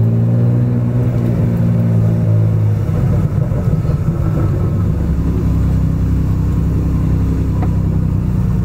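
Acura NSX's tuned V6 engine, making about 680 horsepower, idling close by with a steady low rumble. Its pitch eases down a little over the first few seconds, then holds steady.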